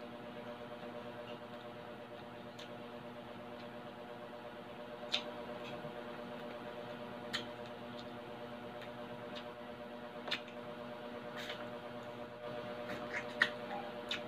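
Close-up chewing of crispy deep-fried pork belly: a handful of short sharp crunches and mouth clicks, the loudest about five seconds in and near the end, over a steady low hum.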